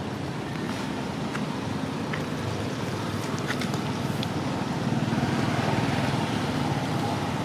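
Steady low rumble of a motor vehicle engine running, with a few faint clicks over it.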